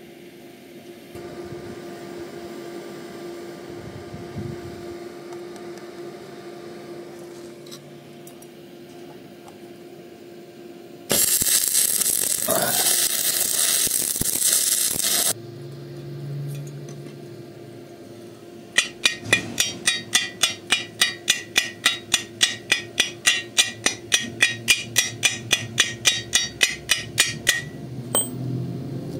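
Stick (arc) welding, the electrode burning with a loud steady hiss for about four seconds. A few seconds later a chipping hammer strikes the fresh weld to knock off the slag: sharp metal taps, about three a second for some nine seconds.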